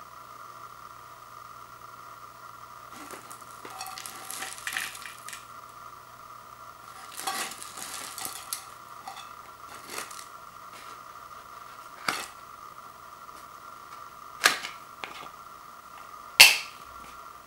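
Hands handling a cardboard Pringles can, with rustling and scraping, then a few sharp clicks and snaps as the clear plastic lid is taken off and handled. The loudest snap comes near the end. A faint steady high hum runs underneath.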